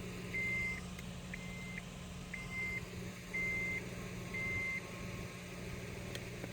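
Electronic beeping: a single high tone about half a second long, repeating about once a second, stopping about five seconds in. A low steady hum runs underneath.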